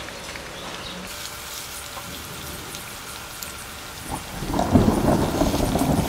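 Tofu deep-frying in hot cooking oil: a steady fine crackling sizzle. A louder low surge of sound comes in about four and a half seconds in and lasts over a second.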